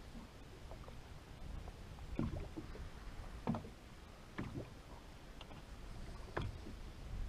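Water lapping and slapping against the hull of a small drifting motorboat: a low, uneven sloshing with a few short splashes or knocks.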